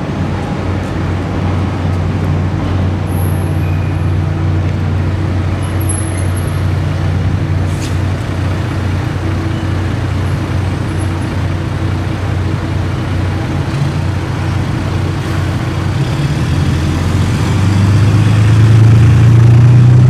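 Road traffic: a steady low engine hum that grows louder over the last few seconds.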